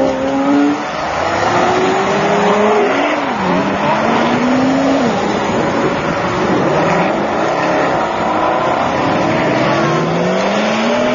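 Several supercar engines accelerating hard one after another. Each pitch climbs and then drops at the gear changes, and the cars overlap.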